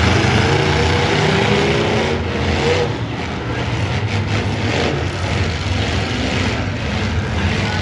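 V8 demolition derby cars running and revving, loud and continuous, with engine pitch rising and falling over the first few seconds. A handful of sharp knocks come between about two and five seconds in.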